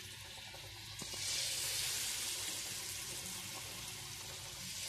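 Hot oil sizzling in a pan as batter-coated winter melon pieces are dropped in to deep-fry, the hiss getting louder about a second in.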